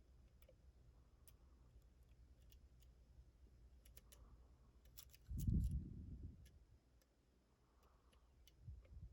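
Faint scattered clicks and ticks of a lock pick and tension wrench working the pins of a Den Brass challenge lock. A dull low thump about five seconds in, lasting about a second, is the loudest sound, with a smaller one near the end.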